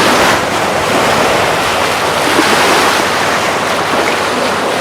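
Atlantic surf washing onto the beach in a steady rush, with wind buffeting the microphone.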